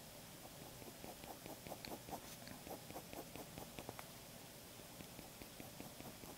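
A pen inking short strokes on paper: a quick run of faint scratches and taps, several a second, thickest in the middle.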